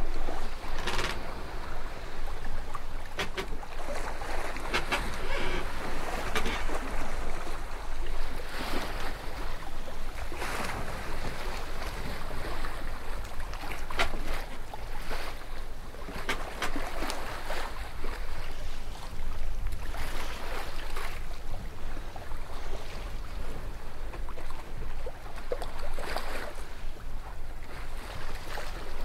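Sea water rushing and splashing along the hull of a moving boat, with wind. The sound swells and fades irregularly.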